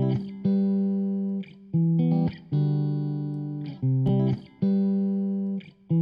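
Background music: plucked guitar chords with a bass line, a new chord struck about every second.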